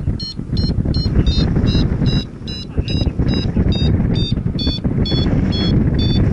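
Paragliding variometer beeping rapidly, about three to four short high beeps a second with the pitch shifting from beep to beep, the climb tone that signals rising air. Strong wind rushes over the microphone underneath.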